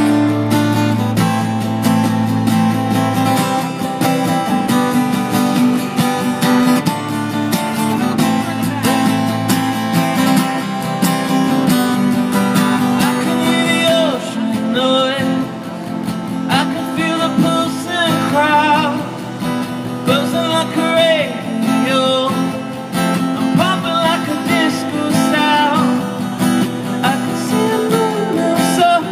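Live band playing through a PA: two acoustic guitars strumming over drums, with a man's singing voice coming in about halfway through.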